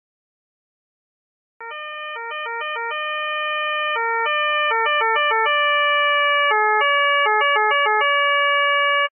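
Austrian police two-tone siren. After about a second and a half of silence it starts, switching between a higher and a lower tone, at times several switches a second and at times one tone held for a second or more. It grows louder and then cuts off suddenly.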